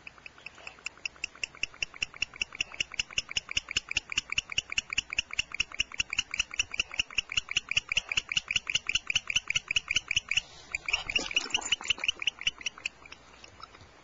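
Male barn owl giving a long rapid run of chirps, several a second, growing louder over the first few seconds: his greeting call as his mate arrives with prey. A brief louder rustle about eleven seconds in, and the chirping stops near the end.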